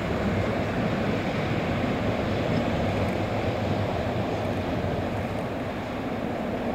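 Departing passenger train hauled by an SU4210 diesel locomotive, its coaches rolling away along the track with a steady low rumble of wheels on rail.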